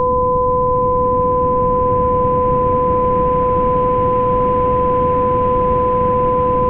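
Homemade binaural-beat track: two steady pure tones, one an octave above the other, over a constant bed of low rushing noise, unchanging throughout.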